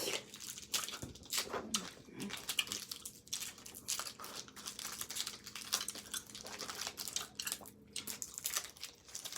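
Hi-Chew candy wrappers being torn open and crinkled in quick, irregular bursts of rustling and crackling.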